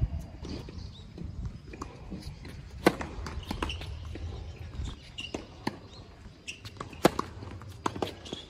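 Tennis ball struck by rackets and bouncing on a hard court in rallies: sharp cracks about a second apart, the loudest about three and seven seconds in, with players' footsteps on the court between them.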